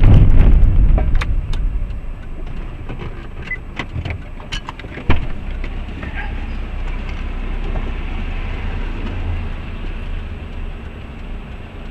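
Low, steady rumble of a car's engine and tyres heard from a dashboard camera inside the cabin, with scattered light clicks and rattles and one sharp knock about five seconds in.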